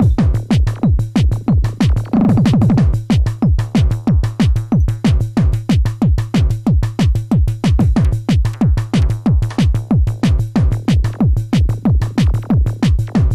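Korg Electribe EMX-1 groovebox playing a drum-machine pattern live: a fast, even run of drum hits that each drop in pitch over a steady low bass note, with a quick roll about two seconds in.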